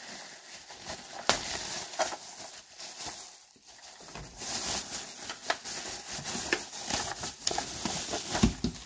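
Thin plastic bag rustling and crinkling as a toy fire truck is pulled out of it, with many small clicks, louder from about halfway through. A low knock comes near the end.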